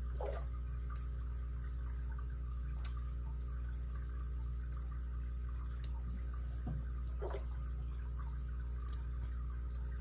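Sparse, sharp little clicks, about seven spread over the ten seconds, of a lock pick working the pin stack inside an all-brass Yale 7-pin padlock under tension, over a steady low hum.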